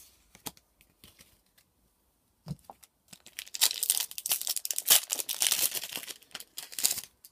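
Foil wrapper of a Magic: The Gathering booster pack being torn open and crinkled, dense crackling for about three seconds in the second half, after a few light taps and clicks.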